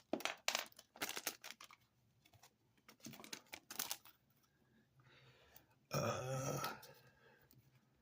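Small plastic clicks and crinkling as an action figure and its plastic accessories are handled and a sword is pushed into the figure's hand, with a short, low vocal sound about six seconds in.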